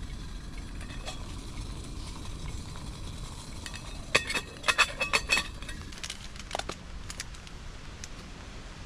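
A quick cluster of sharp, bright clicks and clinks about four seconds in, with a few fainter ones following, over a steady low rumble of outdoor background noise.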